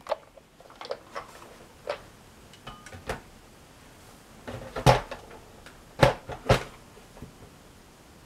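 Plastic toy tank being picked up and moved aside by hand: light clicks and scrapes, then three louder knocks, one about five seconds in and two around six seconds.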